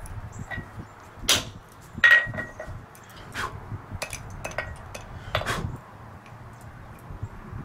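Hand hammer striking a chisel held on a red-hot piece of metal on an anvil: a series of separate, unevenly spaced metallic blows. The loudest comes about two seconds in and is followed by a brief ring.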